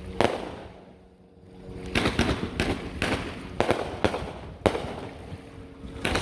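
Aerial fireworks bursting overhead: a string of sharp booms at uneven spacing, one just after the start, then a lull, then a quick run of several more from about two seconds in.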